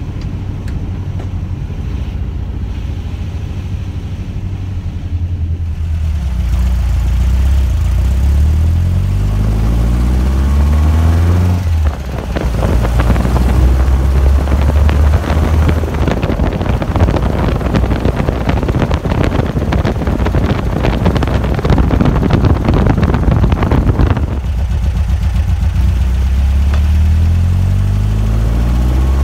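Tuned 2007cc air-cooled flat-four engine of a VW Beetle 1303S running under way, its pitch climbing as the car accelerates. For a stretch in the middle, heavy wind rush on the microphone largely covers it, and the engine comes through again near the end, climbing once more.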